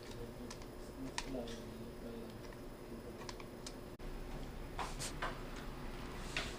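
Scattered small clicks and taps of a 2.5-inch laptop hard drive being fitted into an optical-bay drive caddy, about nine irregular ticks with the loudest near the end.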